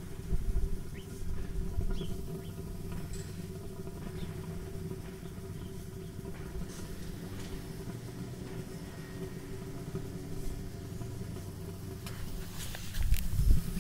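A steady low rumble and hum with faint light crackles from a small fire whirl burning inside a metal drum burner. Near the end come a louder bump and rustling.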